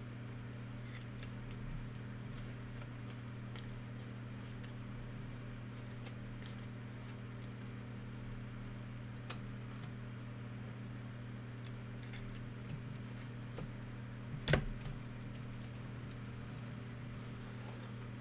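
Trading cards being handled on a table: scattered light clicks and taps, with one louder knock about three-quarters of the way in, over a steady low electrical hum.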